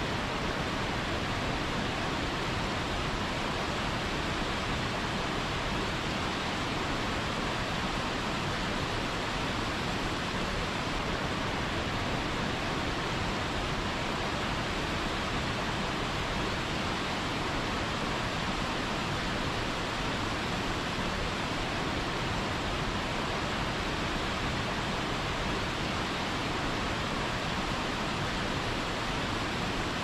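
Waterfall pouring over boulders into a pool: a steady rushing of water.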